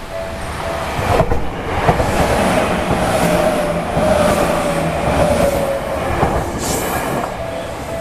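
Level-crossing warning bell ringing in a steady rapid pattern, drowned out about a second in by a Tokyu Oimachi Line electric train passing close by: rumble, clacks of the wheels over rail joints and a steady whine. The train noise fades near the end and the bell comes back.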